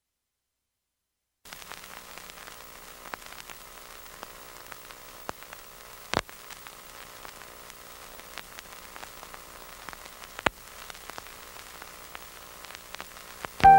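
Steady low hiss with faint hum and scattered crackles, plus a few sharp clicks, starting about a second and a half in after digital silence. Piano music comes in right at the end.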